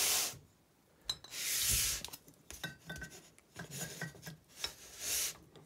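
A crankshaft and flywheel handled on a cardboard-covered bench: a rasping scrape of heavy metal sliding over cardboard about a second in and again near the end, with light metallic clicks and knocks between.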